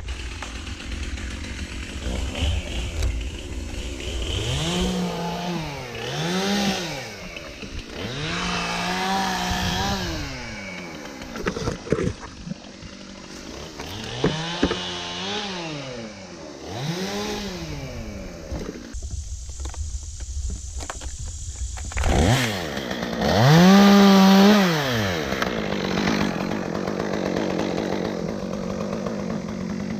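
Chainsaw revved up to full throttle in about six short bursts, each rising, holding and falling back, as it cuts wood; the last burst, near the end, is the loudest.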